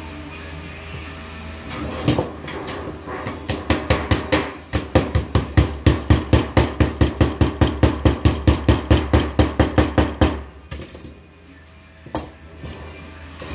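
Hammer striking galvanized sheet-metal duct stack in a quick, steady run of about four blows a second. The blows start about two seconds in and stop near ten seconds, and a few lighter knocks follow.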